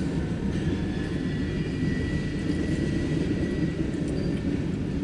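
Loaded coal hopper cars of a CSX freight train rolling past: a steady low rumble of wheels on rail. A faint, thin high squeal runs for a couple of seconds in the middle.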